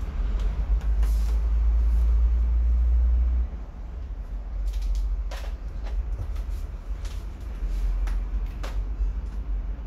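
A deep rumble runs throughout, louder for the first three and a half seconds, under scattered clicks and knocks of a metal LED tube fixture and tools being handled on a workbench while a screw is taken out of its end.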